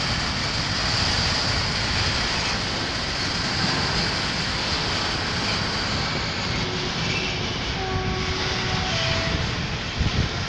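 Freight train of covered wagons rolling past: a steady rumble of wheels on rails with a high hiss. A few faint short tones come through about seven to nine seconds in.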